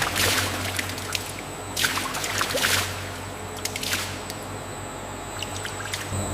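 Liquid splashing and pouring in two swells, one in the first second and one around two to three seconds in, with a few small clicks over a steady low machine hum.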